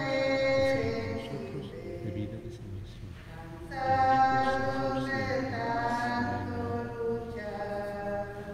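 Voices singing a hymn in long held notes, with a new phrase beginning a little under 4 seconds in and another near the end.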